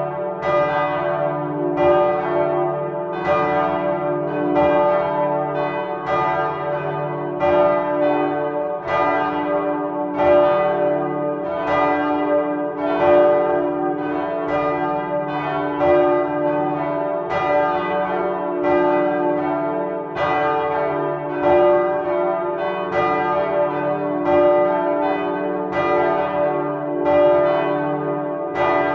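Swinging church bells cast by Michiels of Tournai in 1957, pealing together from inside the bell tower: loud, overlapping strikes several times a second over a steady ringing hum.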